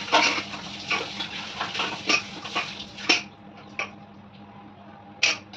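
Kitchen utensils clinking and scraping against a metal cooking pot: a run of sharp knocks and clicks for about three seconds, then quieter, with one more clink near the end. A low steady hum runs underneath.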